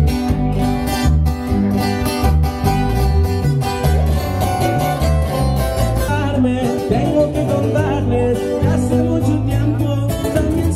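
Live band playing: strummed acoustic guitars over a stepping bass line, with a singer.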